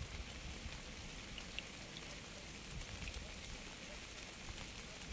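Steady rain falling: an even hiss with a few separate drops ticking now and then.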